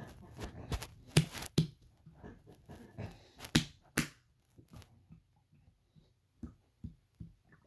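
Stomach gurgling and sloshing: irregular wet pops, clicks and squelches of gas and fluid moving through the gut. The pops are loudest and most frequent in the first four seconds and thin out to scattered soft ones after that.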